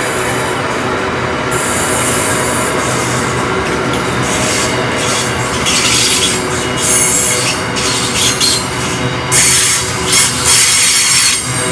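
Double-stack container wagons of a freight train rolling past, a steady rumble of wheels on rail with many steady squealing tones. From about halfway on, short high screeching bursts come and go several times, typical of wheels squealing against the rail.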